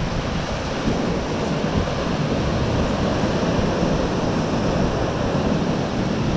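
Surf from a big swell breaking and washing over a rock ledge at the foot of a sea cliff, a steady rushing wash, with wind buffeting the microphone.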